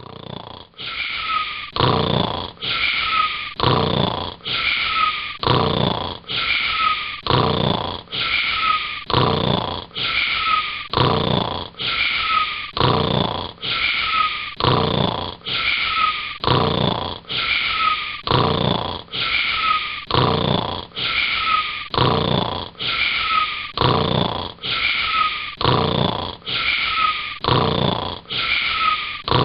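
Snoring sound repeated in a tight, even loop: short identical snores about one and a half a second, each with a high whistling tone that dips slightly.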